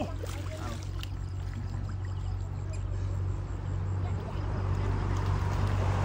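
Small engine of a water pump running with a steady low hum, with water trickling and sloshing in the mud of a drained pond.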